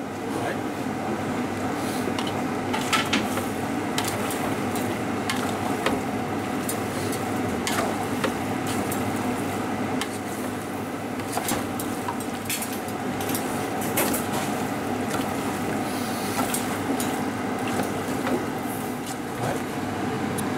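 Metal spatula stirring vegetables in a large steel cooking pot, with scattered clinks and scrapes against the pot over a steady background hum.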